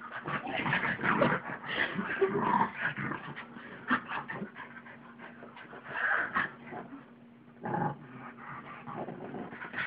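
A pug and a mixed-breed dog play-fighting on a bed: growling and yipping in irregular bursts, mixed with scuffling on the bedding. Busiest in the first few seconds, quieter in the middle, with another flurry near the end.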